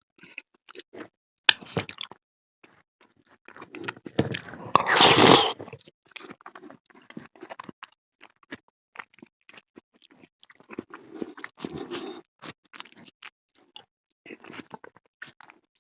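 Close-up chewing and biting of cheese-topped fruit salad, with many small wet crunches and smacks. A louder, noisy mouth sound lasts about a second, roughly five seconds in.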